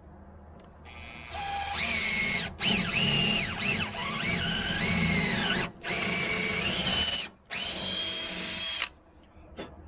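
Power drill boring bolt holes through the aluminum transom of a Tracker Topper 1232 jon boat. It starts about a second in and runs in four stretches with short stops, its whine dipping in pitch as the bit bites and recovering, then stops near the end.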